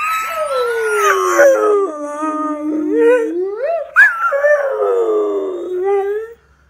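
Dog howling: two long howls. The first slides down in pitch, holds low, and rises again near the three-second mark. The second starts high about four seconds in and falls away.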